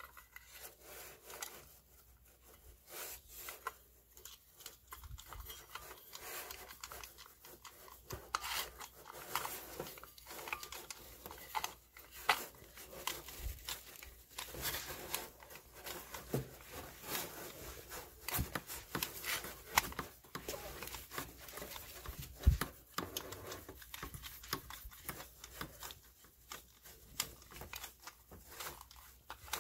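Hand nut driver fastening hex nuts on a furnace draft inducer motor's metal mounting plate: scattered small metal clicks, scrapes and rubbing, with one sharper knock about three-quarters of the way through.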